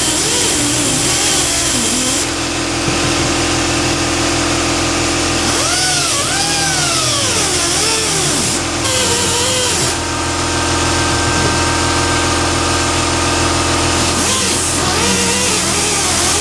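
Small right-angle die grinder cutting down the plastic bracing inside a headlight housing. Its steady whine dips and rises in pitch as the bit bears into the plastic, most markedly about six seconds in and again near the end.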